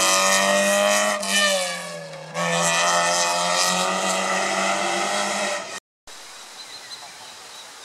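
A rally car's engine is held at high revs and eases off for about a second just after the start, then pulls hard again. The engine sound cuts off suddenly near the end, leaving faint outdoor background.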